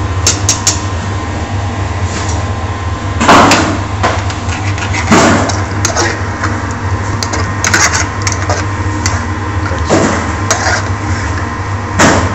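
Long metal spoon stirring and scraping chicken in sauce in a hot aluminium frying pan on a gas burner. Four loud metal knocks and smaller clicks of spoon and pan land a few seconds apart over a steady low drone.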